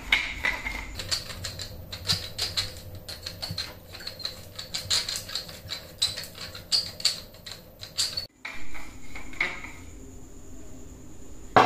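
Large wooden pepper mill grinding peppercorns: a quick, uneven run of dry crunching clicks as it is twisted. The clicking stops suddenly about eight seconds in, leaving a quieter stretch with a faint high whine.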